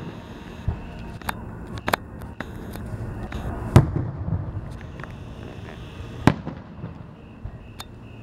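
Aerial firework shells bursting: about half a dozen sharp booms, the loudest about four seconds in with a rolling rumble after it, and another strong one about six seconds in.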